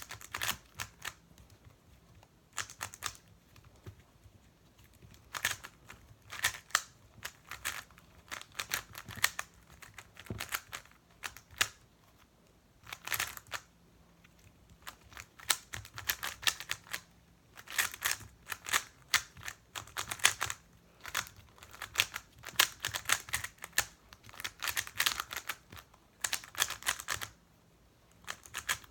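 A plastic 3x3 speedcube being turned fast during a solve: quick runs of clicking layer turns, broken by short pauses to look at the pieces.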